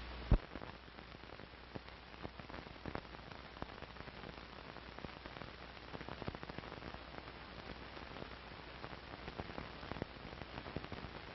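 Surface noise of an old film soundtrack with nothing recorded on it: a steady hiss scattered with crackles and pops, with a loud pop about a third of a second in.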